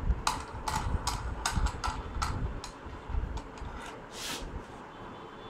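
A quick run of light metallic clicks and knocks as the aluminium vial holder of a Biospec Mini-Beadbeater-96 is handled in its clamp and the black knobs are screwed tight by hand. A short scraping hiss follows about four seconds in.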